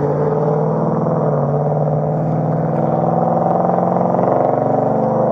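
A motor vehicle engine running steadily close by, a loud, even hum with a fast pulse.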